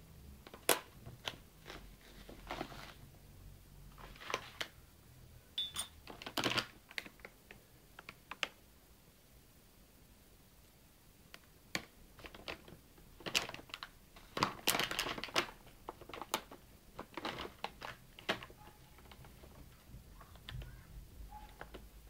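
Handling noises of spooning powder into a cup: a clear plastic bag crinkling and rustling, and a metal teaspoon scraping and clinking against a ceramic cup as it stirs, in irregular bursts with the busiest stretch a little past halfway.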